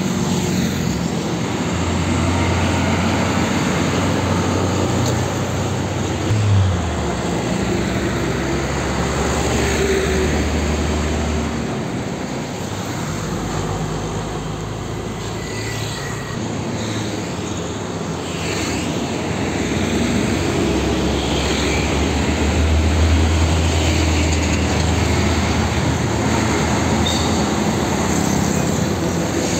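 Heavy diesel trucks driving past close by in busy road traffic with motorcycles, a low engine drone swelling as the trucks go by over continuous tyre and road noise.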